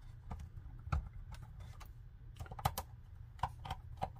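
About a dozen irregular small clicks and taps from hands working on a Huawei 5G router's plastic casing as it is reassembled.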